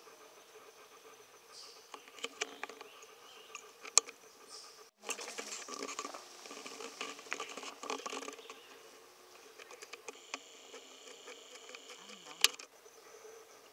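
Light rustling and scattered clicks, with a busier stretch of rustling about halfway through and two sharp clicks, one near the start and one near the end.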